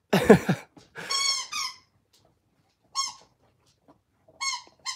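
Squeaker inside a plush lion dog toy squeaking as a Labrador puppy chews it: about five short squeaks at uneven intervals.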